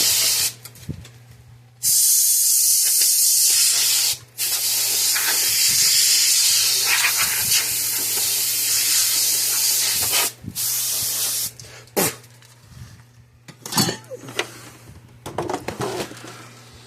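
Loud, even hissing in four long stretches that start and stop abruptly, the longest about six seconds, followed by a few light clicks and knocks of handling in the last few seconds.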